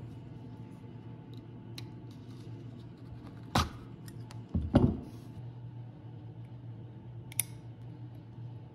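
Workbench handling sounds of hand-stitching a leather sheath with needle and pliers: small ticks, then two sharp knocks around the middle. Near the end comes a crisp snip of scissors, all over a low steady hum.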